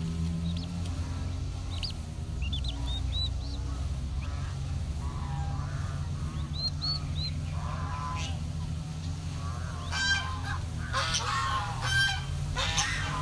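Chicks peeping in short, high cheeps, then geese honking from about eight seconds in, loudest near the end. A steady low hum runs underneath.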